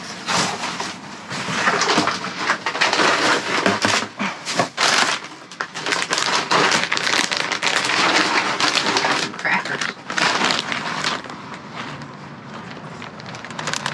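Dense, irregular rustling and crackling of bags and packaging being rummaged through.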